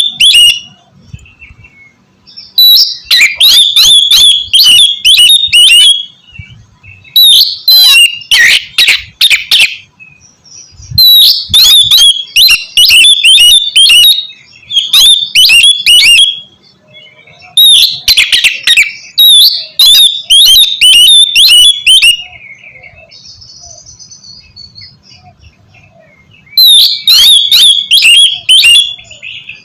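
Oriental magpie-robin (kacer) singing loudly in phrases of rapid, sharp whistled notes a second or two long, separated by short pauses, with a longer pause before a last phrase near the end.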